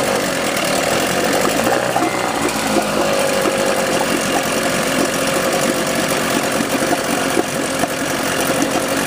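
A 1988 Sears Gamefisher (Force/Chrysler) 9.9 hp twin-cylinder two-stroke outboard running steadily in a water test tub, its propeller churning the water. It has a freshly installed water pump impeller, fitted after the old one melted from running dry.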